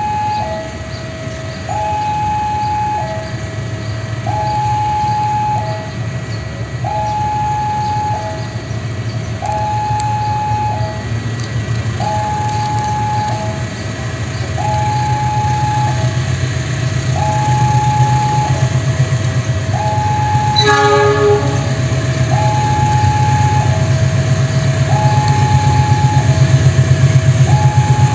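Railway level-crossing alarm sounding a repeating two-tone ding-dong, one cycle about every two seconds, while a diesel locomotive hauling freight wagons approaches, its engine rumble growing louder. About two-thirds of the way through, the locomotive gives a short horn toot.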